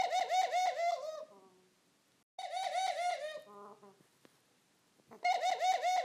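A Barbary (ringneck) dove gives its rolling laughing call three times. Each call is a quick run of short repeated notes, about eight a second, and each lasts just over a second, with the calls about two and a half seconds apart.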